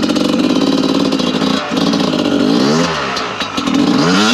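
Dirt bike engine revving hard under throttle. It holds high revs, cuts out briefly about one and a half seconds in, then the revs drop and rise again before climbing high near the end.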